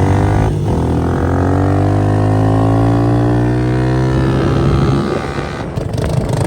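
Vehicle pulling away, its motor's pitch climbing steadily over the first few seconds over a low drone, then easing off about five seconds in.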